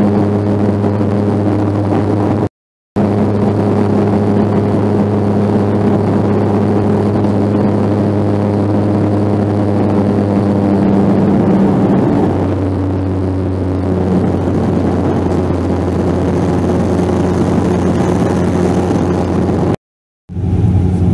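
Cabin noise of a Bombardier Q400's Pratt & Whitney PW150A turboprops during the climb after takeoff: a loud, steady propeller drone with a low hum and its overtones. About halfway through the drone steps down in pitch and gets a little quieter, as the propellers are brought back from takeoff to climb RPM. The sound cuts out completely for a moment twice.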